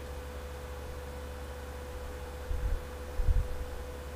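Steady low road and engine hum inside a moving car's cabin, with a faint steady whine over it. Two short low thumps come a little past the middle, under a second apart.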